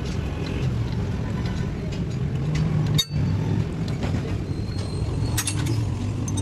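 A steady low mechanical rumble, like a running engine or machine, that drops out for a moment about halfway through. A few faint clicks come near the end.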